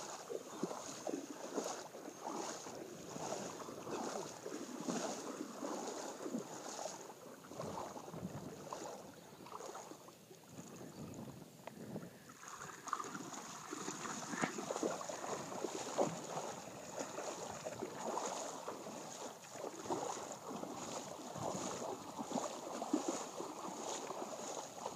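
Footsteps wading through shallow water, splashing with each step in an uneven rhythm, with a brief lull about ten seconds in.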